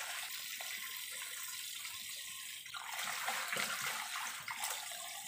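Kitchen tap running onto dishes in a sink while hands rinse a plate and a pot lid under the stream. The water gets louder about halfway through.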